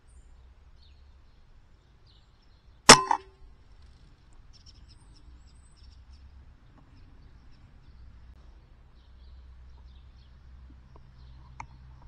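A single shot from an FX Wildcat Mk III .22 PCP air rifle about three seconds in: one sharp crack with a short ring, followed a split second later by a softer hit as the pellet strikes the pigeon.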